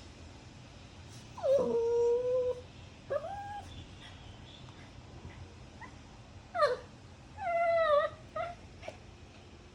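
A dog whining in a series of cries: a long held whine, then a short rising one, and after a pause a sharp falling cry, another long whine and a short final one.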